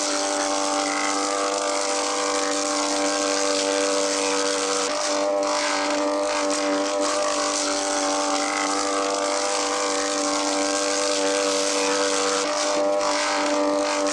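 Steady mechanical drone of a running motor or engine: an even, unbroken hum with several steady tones.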